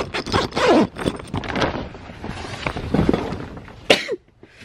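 Plastic tarp rustling and scraping as a zippered tarp door is opened and pushed aside to step through, then one sharp knock about four seconds in.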